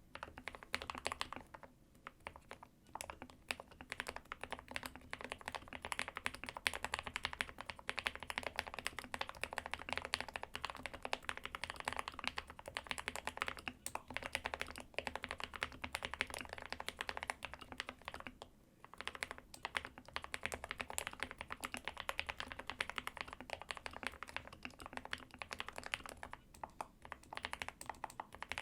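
Fast, continuous typing on a GK61/SK61 mechanical keyboard with lubed Gateron optical Black linear switches, a dense run of key clicks with a few brief pauses.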